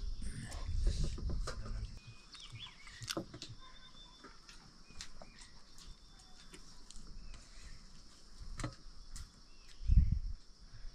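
A steady high-pitched insect chorus with a few short bird chirps and scattered clicks, and a low thump about ten seconds in.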